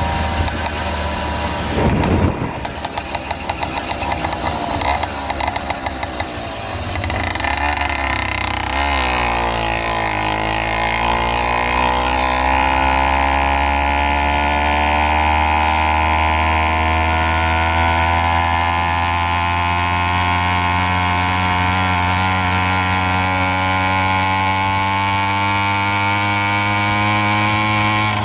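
Motorized bicycle's small engine running under way. A sharp knock about two seconds in; the engine note then sinks as the bike slows, and from about ten seconds it climbs steadily as the bike speeds up again.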